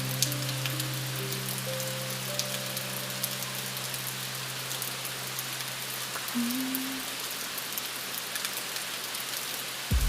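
Steady rain hiss with scattered droplet ticks, over a soft low sustained drone with a few quiet held notes above it. A deeper bass comes in right at the end.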